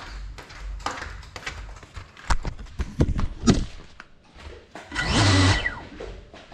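Slippered footsteps slapping and knocking on a tile floor, then a loud half-second whir from the crashed FPV drone's motors that winds down in pitch.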